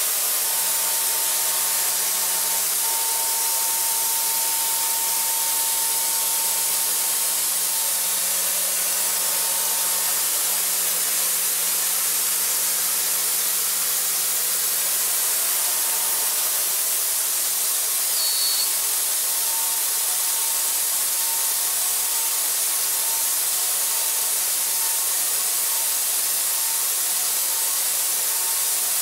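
DMG MORI CMX1100V vertical machining center high-speed milling 1045 steel dry with a half-inch Sandvik five-flute end mill at about 9,000 rpm, full 1-inch depth of cut: a steady hissing cut with a faint steady whine underneath. A brief high-pitched chirp stands out about midway.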